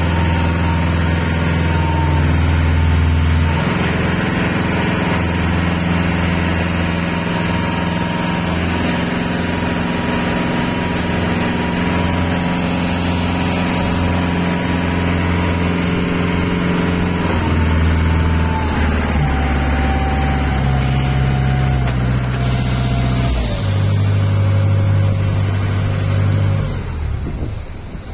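A small ferry boat's engine runs steadily under way. In the second half its note steps down several times as it is throttled back, slowing the boat to come alongside the landing.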